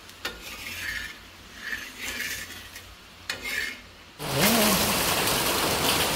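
A wooden spatula scraping three times against an iron tawa as a roti is worked loose and flipped. About four seconds in, a loud steady hiss starts abruptly and holds.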